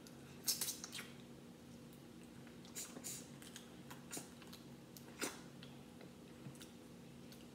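Crab leg shell cracking and snapping as it is pulled apart by hand, mixed with chewing: a scatter of short, sharp crackles, the loudest about half a second in. A faint steady electrical hum sits underneath.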